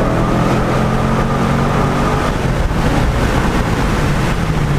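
C6 Corvette V8 running through an SLP Loudmouth II exhaust, a steady low exhaust drone that eases briefly about halfway and then comes back.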